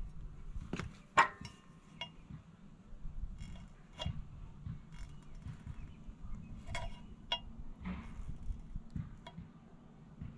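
Scattered light metal clicks and taps as needle-nose pliers work a small plug back into the fill hole of an engine hoist's steel hydraulic cylinder, the sharpest click about a second in.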